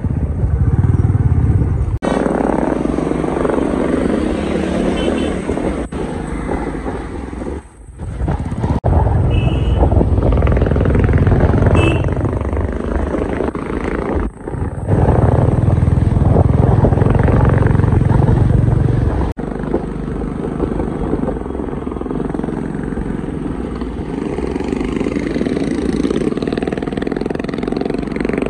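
Motorcycle engines running. The sound changes abruptly several times, loudest around 9 to 12 s and 15 to 19 s.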